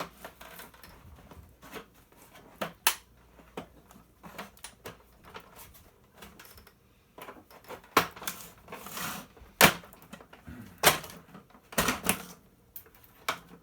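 Irregular clicks, knocks and brief scrapes of parts being handled and pried while a Riccar vacuum cleaner is taken apart, with the sharpest knock near ten seconds in.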